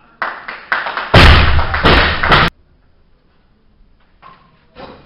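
Loaded barbell with rubber bumper plates dropped from overhead onto the lifting platform. The loud slam comes about a second in, followed by the plates bouncing and rattling, and it cuts off suddenly after about two and a half seconds. A few fainter thuds come near the end.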